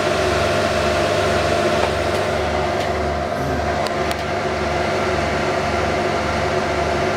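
File server running with its cooling fans and many spinning IDE hard drives: a steady whirring hum with several held tones, a low throb pulsing at an even rhythm, and a few faint clicks, while the drives are busy formatting a RAID array.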